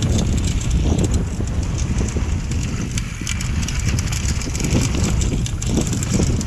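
Mountain bike riding fast down a dirt trail: wind buffeting the camera's microphone in a steady low rumble, with tyres crunching over dirt and gravel and many quick rattles and clicks from the bike.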